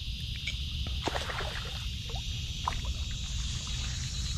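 A hooked fish being reeled in to the bank, making a few small splashes and ticks at the water's surface over a steady low rumble.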